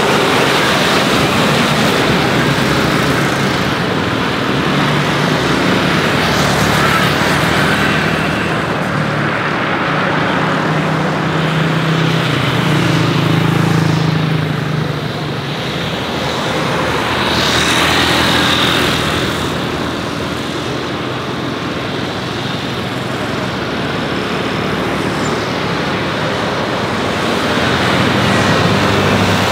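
Steady outdoor engine and traffic noise, a continuous rumble that swells and eases a little, with a low hum strongest about halfway through.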